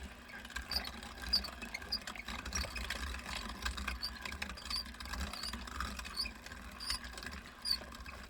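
Weston No. 32 meat grinder grinding meat: a low hum under a grinding noise, with sharp clicks about every half second to second, stopping suddenly near the end.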